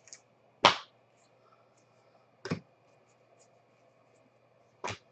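Three sharp taps about two seconds apart, the first the loudest: trading cards being handled and set down on a table while a pack is opened.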